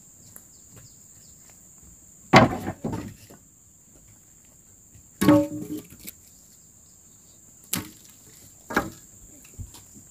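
A heavy hand tool swung against wood, four sharp strikes a few seconds apart, one of them ringing briefly, over a steady high buzz of crickets.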